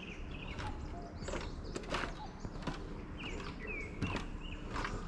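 Steady footsteps of a person walking, about three steps every two seconds, with a bird chirping a few short times.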